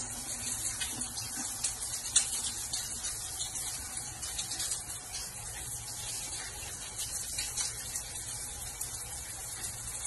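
Shower head running: a steady hiss of water spray, with one short click about two seconds in.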